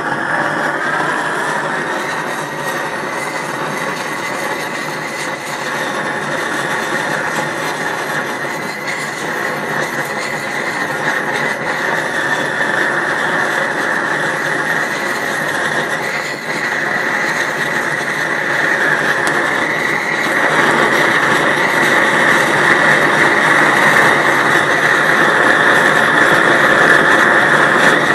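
Large gas torch burning with a steady rushing noise of the gas jet and flame, growing louder about two-thirds of the way through.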